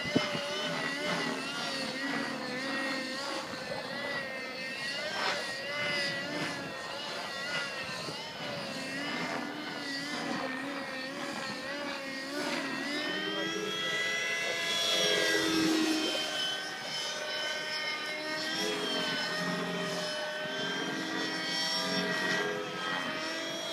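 Radio-controlled model helicopter flying, its motor and rotor whine wavering up and down in pitch as it manoeuvres, with a big swoop in pitch about halfway through.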